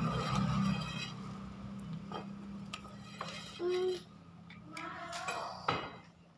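Stones being handled and set down on a tiled floor, giving a few light knocks and clicks. A short pitched sound comes a little past the middle and is the loudest moment.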